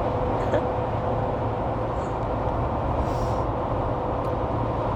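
Steady road and engine noise inside the cabin of a moving car, an even low rumble with a faint constant hum.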